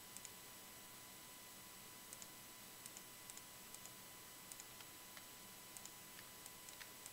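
Near silence with about ten faint computer mouse clicks, many in quick pairs, over a steady faint hiss.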